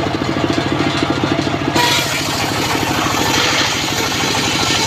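Engine of a homemade circular saw bench running with a rapid, even pulse. About two seconds in, the spinning blade starts cutting into a log, and a loud, hissing cutting noise is added over the engine.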